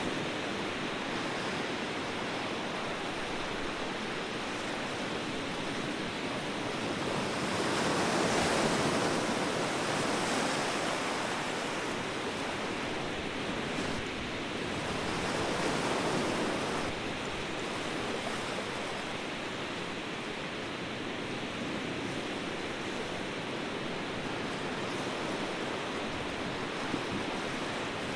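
Ocean surf: a steady wash of waves that swells louder twice, about eight and fifteen seconds in.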